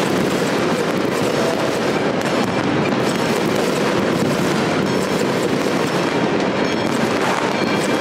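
Steady, dense din of many fireworks and firecrackers going off at once across a city: continuous popping and crackling with no single blast standing out.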